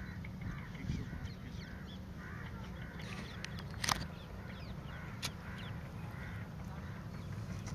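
A chorus of many waterbirds calling overlapping from a distance, with a brief sharp sound about four seconds in and another a little after five seconds, over a steady low rumble.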